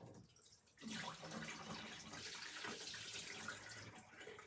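Pre-soak water pouring out of a film developing tank's light-proof spout into a utility sink, a steady rush that starts about a second in and dies away near the end.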